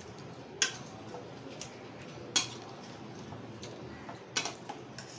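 Stirring spoon knocking and scraping against a stainless steel kadai while thick chicken curry is stirred, with a few sharp clinks, the loudest about two and a half seconds in.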